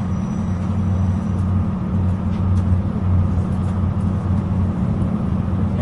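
Inside a Translink NI diesel multiple unit train while it runs along: a steady low rumble of engine and wheels on the rails, with a few faint clicks.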